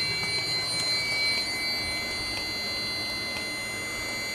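Fire alarm control panel's buzzer sounding a steady high-pitched tone after the system is put into alarm for a test, with faint ticks about once a second. A second, higher tone drops out a couple of seconds in.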